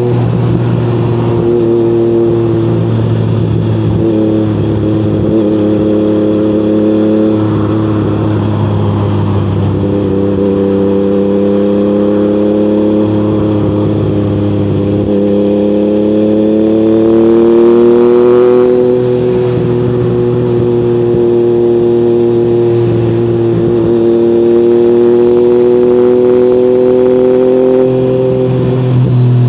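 Yamaha MT-09's CP3 three-cylinder engine running through an Akrapovic exhaust at a steady, even note, its pitch climbing a little past halfway and then holding at the higher note.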